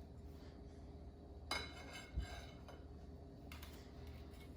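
A few light clinks and a soft thump of a spatula and cookies against a baking pan and plate as cookies are lifted onto the plate: a sharp clink about a second and a half in, a dull knock just after, and a softer scrape later.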